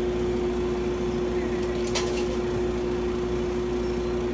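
Steady electric hum from a self-serve soft-serve ice cream machine, with a single click about two seconds in.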